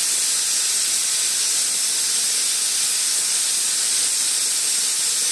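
Aluminium pressure cooker whistle going off: steam hisses out from under the lifted whistle weight in a loud, steady jet. It is the cooker's first whistle, the sign that full pressure has been reached.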